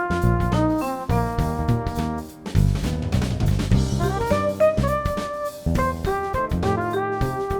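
Background music: an upbeat jazzy instrumental with a drum kit keeping a steady beat under piano or keyboard, with a cymbal crash about two and a half seconds in.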